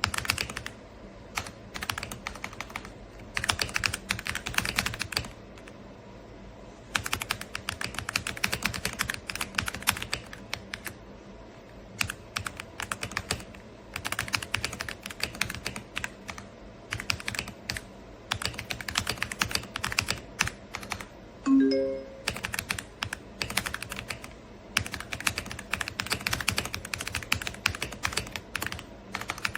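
Typing on an AULA F99 wireless mechanical keyboard: bursts of rapid keystrokes separated by short pauses, with the deep "thocky" key sound. A short pitched tone sounds about three-quarters of the way through.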